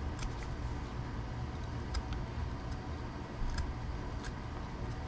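Box cutter blade shaving excess plastic off a hard plastic RC kit part: a few small, sharp scrapes and clicks, over a steady low hum.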